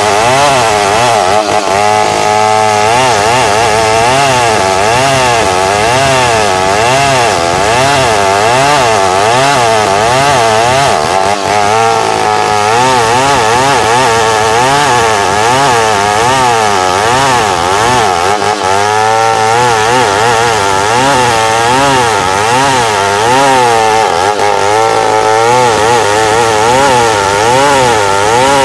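New West 707 chainsaw running at high revs while ripping lengthwise through a squared timber beam, its engine pitch rising and falling about once a second as the cut is worked.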